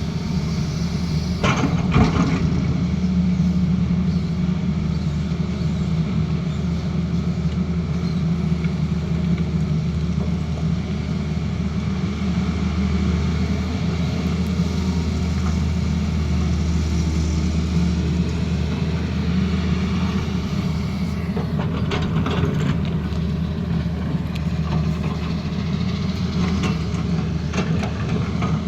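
Tata Hitachi Zaxis excavator's diesel engine running steadily under working load, with short knocks about two seconds in and again about three-quarters of the way through.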